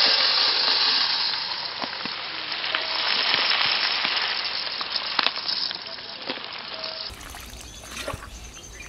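Dry basmati rice pouring in a stream into an aluminium bowl, a loud, steady, sizzle-like hiss of grains landing on metal and on each other that eases off gradually and stops about seven seconds in. Fainter water sounds follow from the bowl, where the rice is covered with water to soak.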